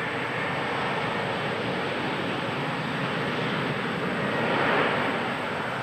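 Jet engine noise of a Boeing 737-800, with its CFM56 turbofans at takeoff power as it takes off. The noise swells slightly near the end and then cuts off suddenly.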